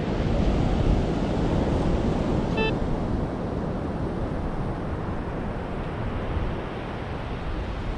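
Beach surf and wind buffeting the microphone, a steady wash of noise, with one short pitched beep about two and a half seconds in, likely the White's MX7 metal detector's target tone.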